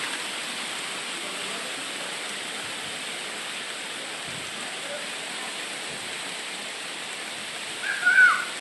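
Steady hiss of volcanic sand falling like rain, pattering onto surfaces. Near the end a short, loud voice briefly rises over it.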